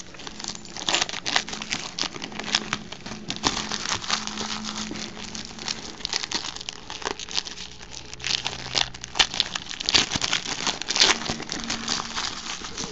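Foil wrapper of a Topps Chrome baseball card pack being torn open and peeled back by hand, crinkling in irregular crackles.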